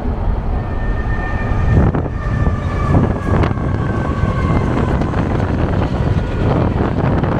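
Freight train rolling past close by: a loud, continuous rumble of the diesel locomotive and covered hopper cars on the rails, with a few sharp clanks and a faint steady high ringing for a couple of seconds early on.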